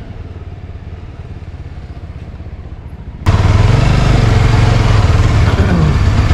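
Yezdi Scrambler's 334 cc single-cylinder four-stroke engine running as the bike rolls at low speed. About three seconds in, the sound jumps abruptly to a much louder engine with a rushing noise over it, and near the end the engine briefly rises in pitch.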